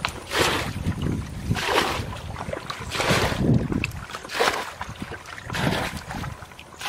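Muddy water being bailed out of a shallow pool with a handheld bucket: a splash of scooped and flung water about once every second and a bit, some five times.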